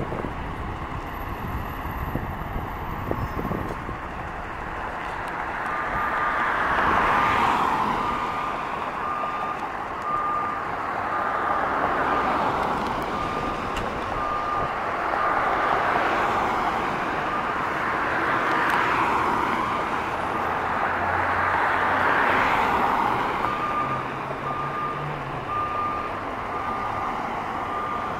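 A fire rescue truck's reversing alarm beeps steadily about once a second over its running engine, starting a few seconds in. Over them a siren wails, rising and falling about every four seconds.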